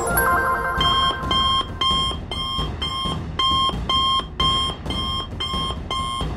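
Electronic call alert from a cartoon smartwatch, a two-tone beep repeating about twice a second, signalling an incoming call for help.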